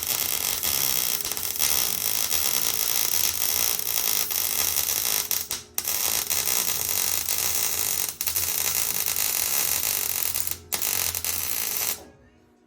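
Electric arc welder laying a bead: a loud, steady hiss that stops three times for a moment and cuts off near the end. The weld joins thick 3/16-inch plate to a thin sheet-metal tube, so the heat is kept mostly on the thick part to avoid burning through.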